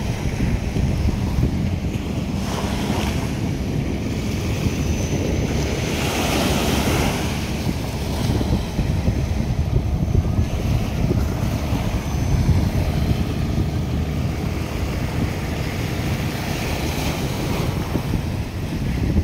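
Wind buffeting the microphone with a steady low rumble, over water washing against the jetty and the harbour shore.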